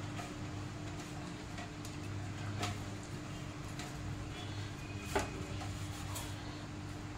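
Hands rubbing masala marinade into whole tilapia in a steel plate: soft handling noises with a few light clicks against the metal, the sharpest about two and a half and five seconds in, over a steady low hum.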